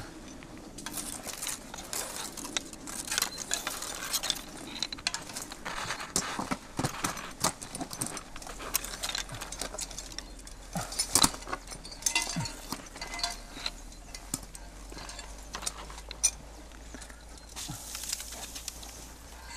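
Climbing hardware clinking and knocking, with branches and clothing rustling, as a roped climber moves up a brushy rock face.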